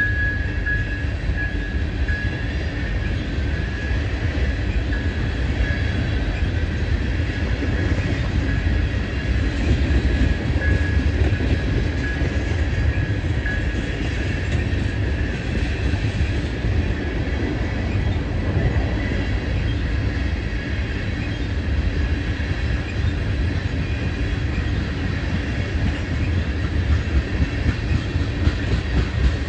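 Freight train of tank cars rolling past: a steady low rumble of steel wheels on rail with clickety-clack over the rail joints. A thin, high steady squeal from the wheels fades out about halfway through.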